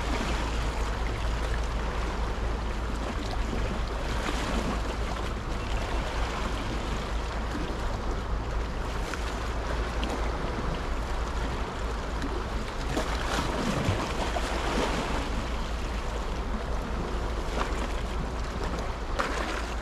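Sea washing and surging against the rocky shore, a steady wash with brief swells, over a low rumble of wind on the microphone.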